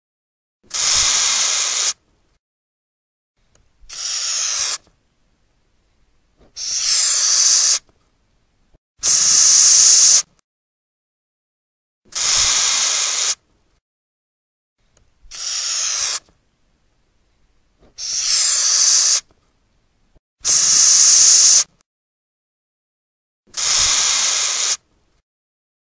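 Madagascar hissing cockroach hissing by forcing air out through the breathing pores on its abdomen. There are nine hisses, each about a second long, coming every two and a half to three seconds with silence between.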